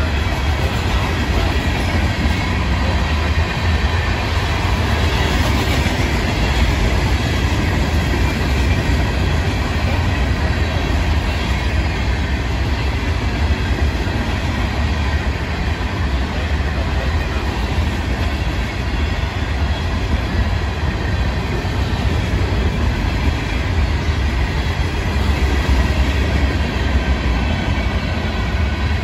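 Florida East Coast Railway freight cars (open hoppers, gondolas and a covered hopper) rolling past at speed: a steady, loud rumble of steel wheels on rail.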